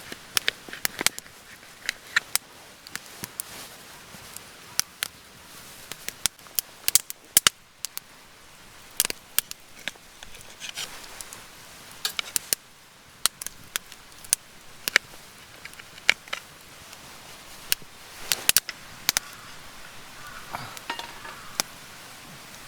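Wood fire crackling, with irregular sharp pops and snaps one to three times a second.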